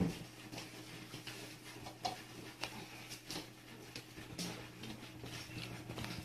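Cats crunching dry kibble from plates: faint, irregular small clicks and crunches over a low steady hum.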